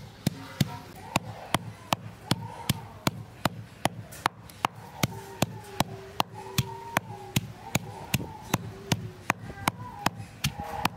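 Pestle pounding lemongrass, chili and herbs in a stone mortar into a spice paste, a steady rhythm of sharp strokes about two to three a second.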